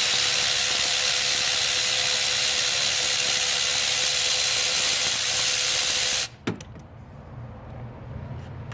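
Cordless Milwaukee ratchet running steadily for about six seconds while backing out an 8 mm intake manifold bolt on a 5.7 Hemi, then stopping abruptly, with a single click just after.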